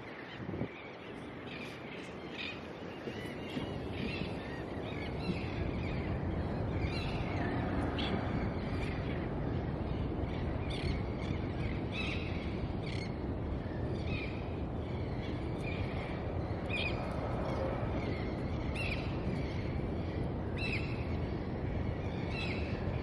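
Small birds chirping in short, repeated calls about once a second over a steady rushing outdoor background noise.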